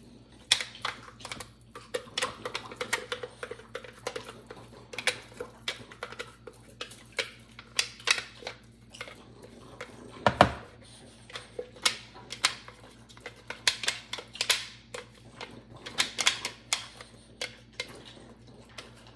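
Spatula scraping and tapping blended mush out of a NutriBullet blender cup into a plastic tub: irregular clicks and knocks of plastic on plastic, with one louder knock about ten seconds in.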